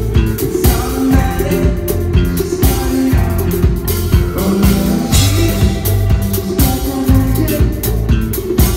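Rock band playing live at full volume: drum kit beating out a steady rhythm under heavy, sustained bass and amplified guitar.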